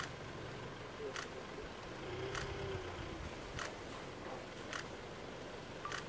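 Faint, steady idle of the Isuzu D-Max's diesel engine, with a sharp click about every second and a quarter.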